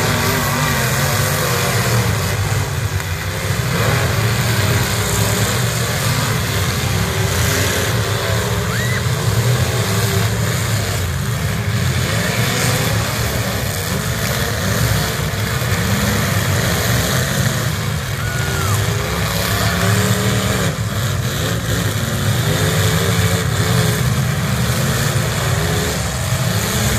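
Engines of several demolition derby stock cars running loudly together, revving up and down.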